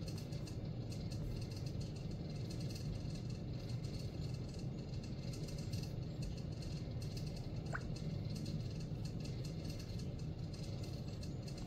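A steady low rumble of background noise, with one brief rising chirp about eight seconds in.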